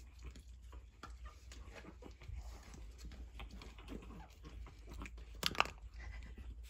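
Pug puppy moving about a bowl of milk on a wooden floor: scattered small clicks and soft puppy noises, with one sharper click about five and a half seconds in.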